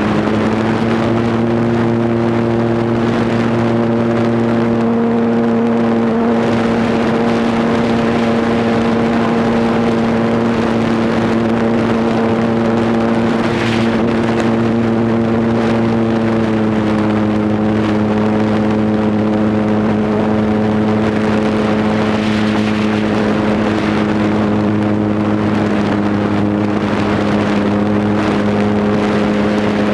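RC Cub model airplane's motor and propeller running at a steady high throttle, heard from a camera mounted on the plane, over a rush of air. The pitch holds steady and eases slightly lower about halfway through.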